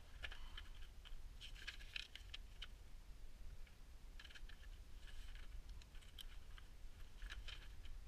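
Faint rustling and light clicks of cardboard packaging and a folded paper instruction sheet being handled, in a few short spells.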